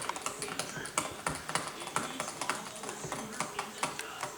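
Light plastic-and-metal clicks and taps, about three a second at an uneven pace, from hands and a screwdriver working on a laptop's case and its small screws during disassembly.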